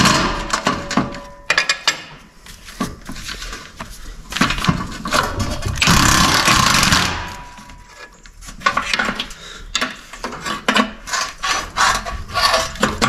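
Irregular metal knocks and clatter of a hammer and hand tools working the exhaust loose from a Toyota Hilux's underside. A steady harsh rattle lasts about two seconds midway.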